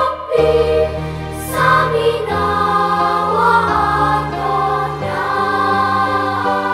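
An elementary-school choir sings long held notes of a march over sustained low accompaniment notes that change pitch every second or so.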